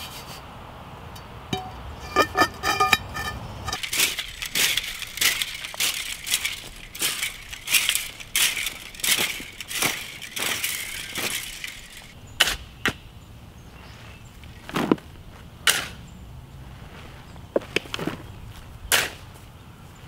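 Shovel and rake working loose soil and grass on a canvas drop cloth: a run of scraping, scooping strokes and sharp knocks, with a few ringing clinks about two seconds in.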